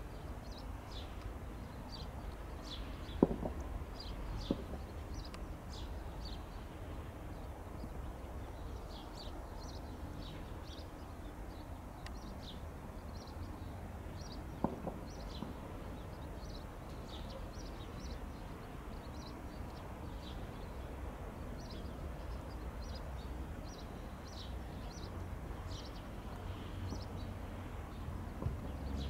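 Small birds chirping in short, scattered calls over a low, steady rumble, with three sharp clicks, one a few seconds in, one soon after, and one about halfway through.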